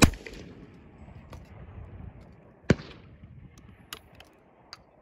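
Winchester Model 37 single-shot break-action shotgun firing a bird-shot load right at the start, the report rumbling away over the next second or so. About 2.7 s in comes a sharp snap as the action is broken open and the spent shell is ejected, followed by a few light clicks of the gun being handled for reloading.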